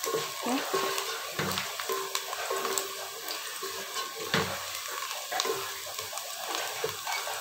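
Sliced onions sizzling in hot oil in a metal pot while a wooden spoon stirs them, with occasional knocks and scrapes of the spoon against the pot.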